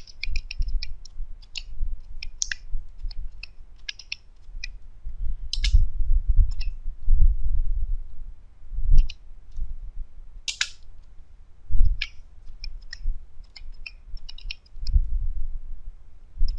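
Computer keyboard keys clicking in irregular short runs of keystrokes as code is typed, with dull low thuds in between.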